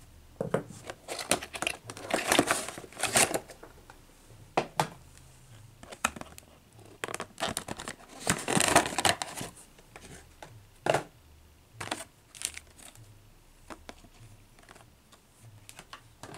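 Clear plastic packaging crinkling and crackling as it is handled to unpack a small diecast model airplane: two longer spells of dense crackling, about two seconds in and again about eight seconds in, with scattered sharp clicks between them.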